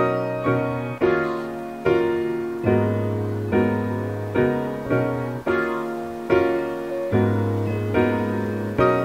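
Background piano music: slow, even chords struck a little more than once a second, each ringing and fading before the next.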